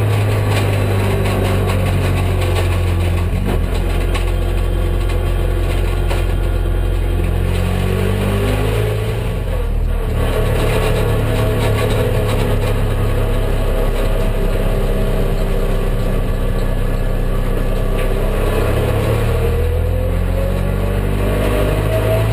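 Nissan Tiida race car's four-cylinder engine heard from inside the cabin, running steadily under power. The engine note dips briefly about ten seconds in and climbs in pitch near the end as it revs up.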